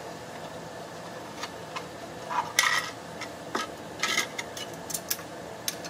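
Handling noises of a houseplant being repotted: a plastic nursery pot and potting soil scraped, rustled and clicked. The handling starts about a second and a half in, comes in two louder bursts, and ends in a quick run of light clicks, all over a steady low hum.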